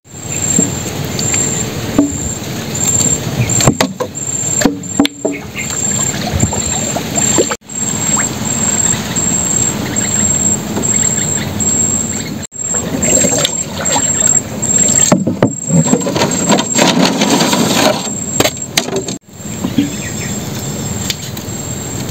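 Water splashing and sloshing around a small wooden boat, with knocks and rustling as crab traps, poles and branches are handled. A high insect chirp pulses steadily under it all.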